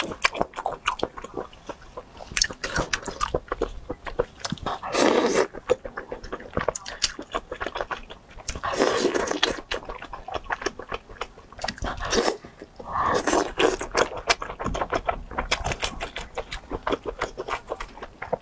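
Close-miked chewing of soft oden skewers (fish balls, fish cakes and fried tofu): wet mouth clicks and smacks all through, with a few louder, longer mouth sounds about five, nine and thirteen seconds in.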